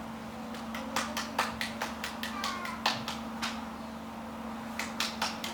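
A scatter of sharp, irregular taps and knocks, a few a second, with a pause in the middle and more near the end.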